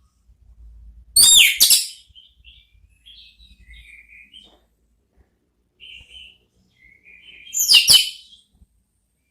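Orange-headed thrush (anis merah) singing: two loud, sharp high-pitched phrases, one about a second in and one near the end, with soft twittering in between.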